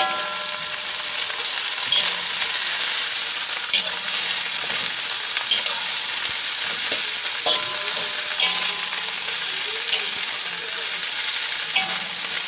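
Papaya shoots sizzling in hot oil in a metal wok as a metal spatula stirs them, scraping and clinking against the pan every second or two.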